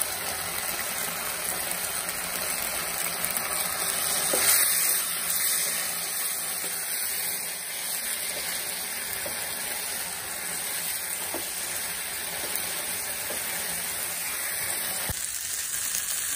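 Beef pepper roast sizzling in a nonstick frying pan while it is stirred with a spatula, the gravy cooking down to a dry roast. A few light knocks of the spatula against the pan.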